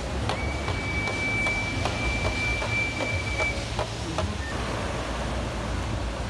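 The Voladores' cane flute holds one long high note for about three seconds and then stops, with light evenly spaced drum taps, over low wind rumble on the microphone.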